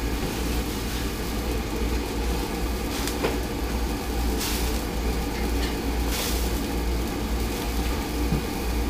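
Steady roar of a gas wok burner under a wok of boiling water, with a few soft splashes and taps as pieces of pla khang catfish are dropped in to blanch.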